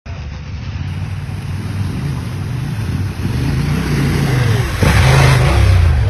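Off-road motorcycle engine running and revving as the bike rides through a creek crossing, its pitch rising and falling with the throttle. About five seconds in, a loud rush of noise as the bike passes close.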